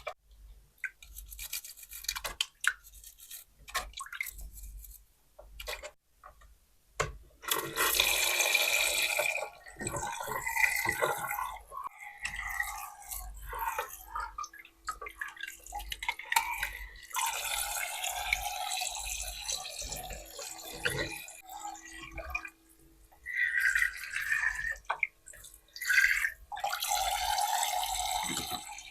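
Small plastic toy dishes clicking and tapping. Then water from a toy sink's faucet runs and splashes over them, with the flow starting and stopping several times.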